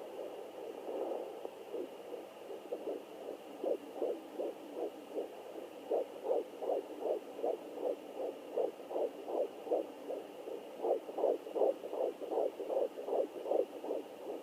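Fetal heartbeat picked up by a handheld fetal doppler and heard through its speaker as fast, rhythmic whooshing pulses, about two and a half a second, faint at first and steadier and clearer from about four seconds in.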